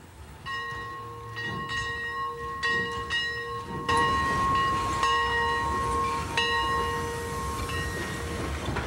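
Steam locomotive whistle blowing one long steady chord, with a few sharp clanks over it.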